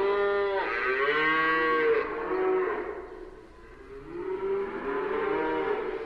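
Several cows mooing in a herd, their drawn-out calls overlapping, some bending up and down in pitch. The calls ease off about halfway through, then more moos start up.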